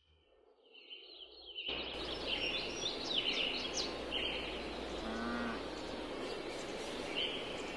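Countryside ambience fading in over the first two seconds: a steady background hiss with birds chirping again and again, and a short low-pitched call about five seconds in.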